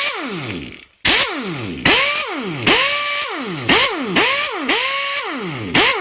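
Pneumatic impact gun triggered in short bursts about once a second, spinning free. Each burst is a blast of air hiss with a whine that climbs as the motor spins up, holds briefly, then falls away as it winds down.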